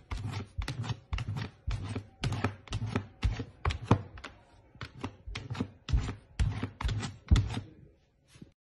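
A golden retriever puppy's paws knocking and scratching at a plastic container, an irregular run of taps and thunks, about two to four a second, that stops shortly before the end.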